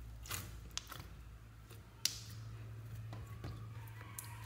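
Fingers pressing and squishing clear slime packed with tiny foam beads, giving scattered crackling pops and soft squelches, with one sharper pop about two seconds in.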